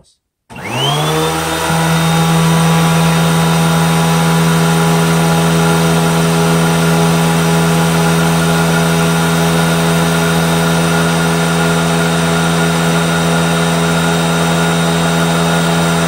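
Hoover WindTunnel 3 upright vacuum cleaner switched on about half a second in, its motor whine rising to full speed within a second or two, then running steadily with the brush roll on while it draws air through a carpet sample.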